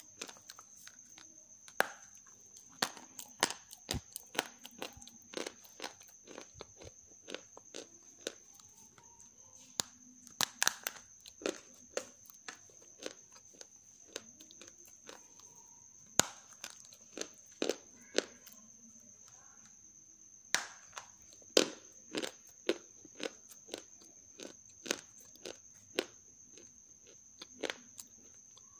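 Half-roasted grey clay crunching as it is bitten and chewed: irregular crisp crunches, a handful of them sharply louder than the rest. A faint steady high-pitched whine runs underneath.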